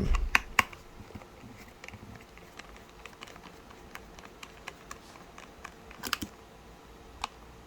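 Irregular small clicks and taps of a screwdriver taking the screws out of a small Bluetooth speaker's case, with a louder pair of clicks about six seconds in.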